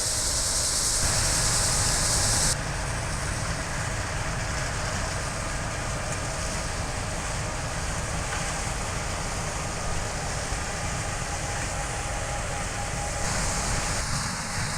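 Heavy farm machinery running steadily, with a deep rumble and a hiss above it; the sound shifts abruptly a few times.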